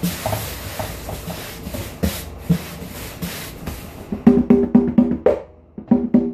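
Conga drums played by hand: a few soft strokes at first, then about four seconds in a brisk run of loud strokes with ringing open tones, about five a second, broken off briefly near the end.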